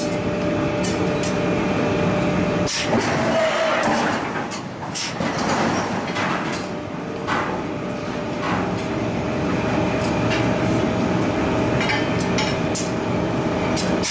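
Steady machinery hum in a forging shop, with scattered sharp metal clanks from tools against the red-hot forging and its die.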